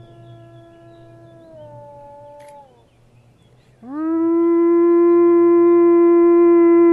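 Wolf howling: a fainter held howl that slides down in pitch and fades, then after a short gap a loud howl that rises at the start and holds one steady note.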